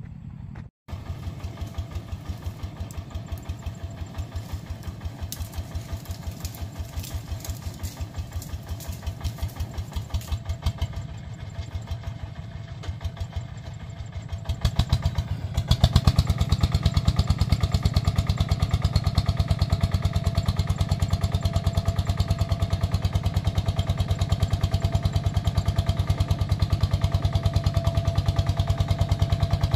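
Single-cylinder diesel engine of a công nông farm vehicle running with an even, rapid beat. About halfway through it gets louder and stays louder.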